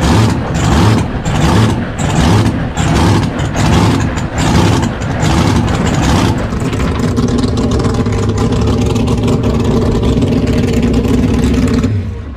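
Supercharged, fuel-injected 427 Chevy big-block V8 in a V-drive race boat, running at low speed. For the first half it pulses unevenly about twice a second, then it settles into a steady idle, and it cuts off near the end.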